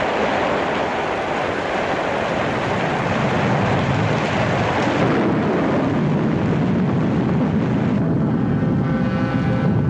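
Heavy rain pouring steadily, with thunder rumbling low; after about five seconds the hiss of the rain eases and the low rumble takes over.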